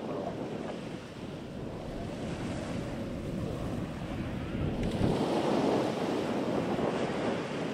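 Wind buffeting the microphone: a toneless rushing noise that grows louder about five seconds in.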